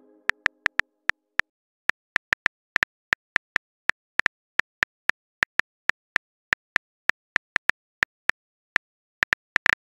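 Smartphone on-screen keyboard key clicks: a string of short taps at an uneven pace, about four a second, as a text message is typed.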